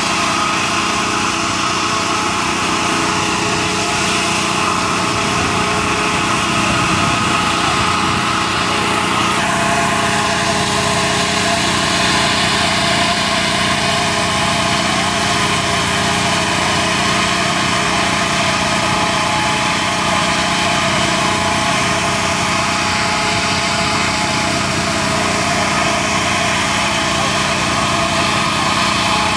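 An engine running steadily, with a small change in pitch about ten seconds in.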